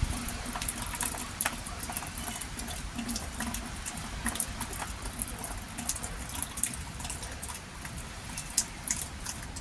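Rain falling, with many irregular drops pattering over a steady hiss and a low rumble underneath.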